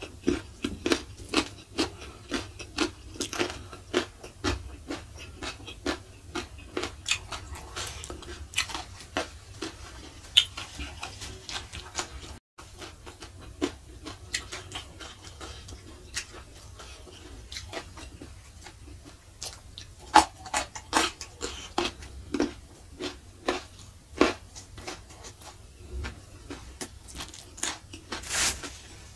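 Close-miked mouth sounds of a person eating by hand: chewing with sharp crunches and wet smacks several times a second. A longer breathy noise comes near the end.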